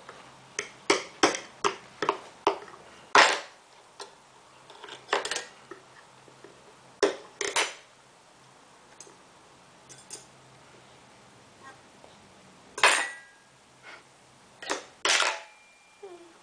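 Metal forks clattering and knocking on a plastic high-chair tray as a toddler bangs them about: a quick run of sharp knocks in the first few seconds, then scattered ones, a couple ringing briefly.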